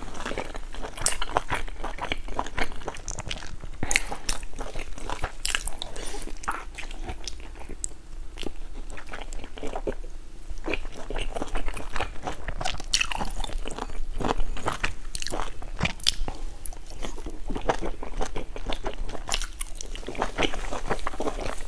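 Close-miked eating of large steamed dumplings: biting and chewing, with a dense, irregular run of sharp mouth clicks.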